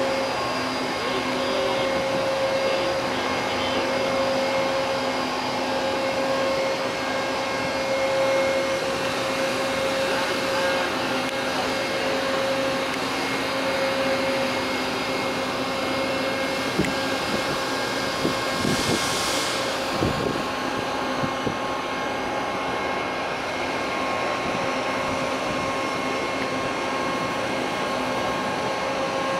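Steady machinery hum with several constant tones, as of large fans or motors running. A few knocks and a brief hiss about two thirds of the way in.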